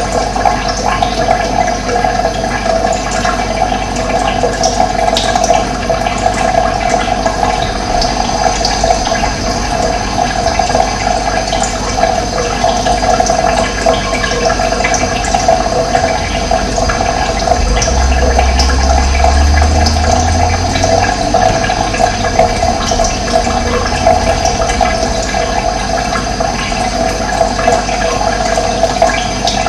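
Running water rushing steadily, its strongest part a mid-pitched splashing rush. There is a brief low rumble about two-thirds of the way through.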